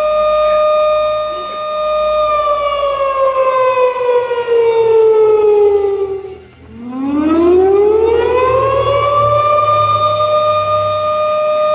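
Outdoor civil-defense warning siren of the kind sounded for a tornado, holding a steady tone, then winding down in pitch, dropping out for a moment about midway, and winding back up to the same steady tone.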